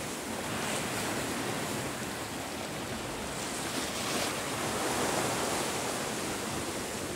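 Steady wash of sea waves, with some wind noise on the microphone.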